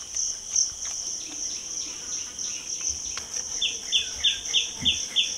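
Steady high-pitched drone of crickets. From about two thirds of the way in, a bird calls in a quick run of short descending chirps, about three a second.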